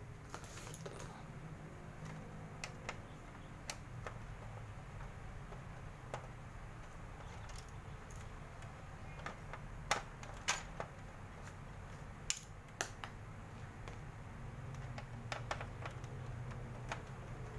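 Scattered, irregular sharp clicks and light knocks of a small metal hand tool and fingers against the plastic and metal parts of a Canon iR photocopier's opened paper-path guide, over a steady low hum.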